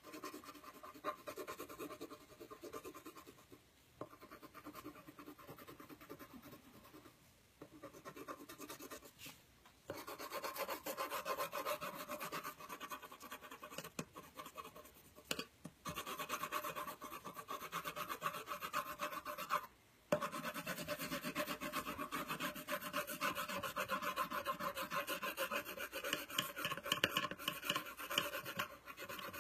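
Watercolour pencil scribbling fast back and forth on paper: a dry, rasping scratch of rapid strokes, with a few short pauses. It is fainter for about the first ten seconds, then fuller.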